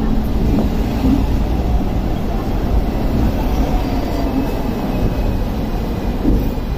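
Hong Kong double-decker tram running along its street track, heard from the upper deck: a steady low rumble of the car and its wheels on the rails.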